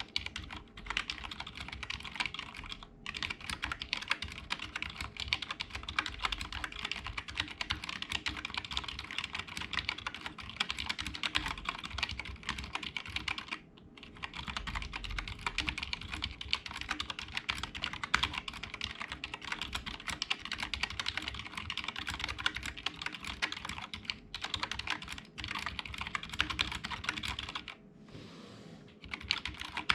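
Typing on a Cooler Master CK351 gaming keyboard with optical switches: rapid, continuous key clicks, with brief pauses about 3 seconds in, about halfway through, and near the end.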